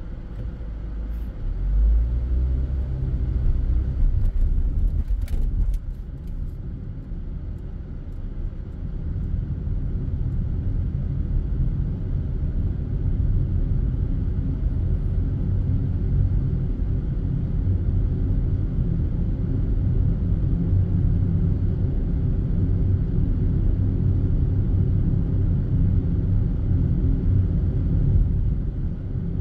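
A car being driven on city streets: steady low rumble of tyres and engine, with a few brief knocks about five seconds in.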